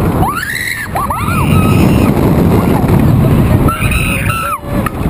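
Kids on a swinging pendulum ride screaming in three high, wavering cries, short ones early and a longer one near the end, over a loud rush of wind buffeting the ride-mounted microphone as the swing sweeps through the air.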